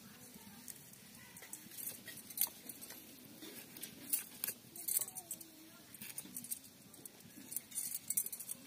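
Dried salted fish being scraped against the blade of a bonti, a curved blade fixed to a wooden board: irregular, crisp scratching strokes, several a second, as the scales are cleaned off.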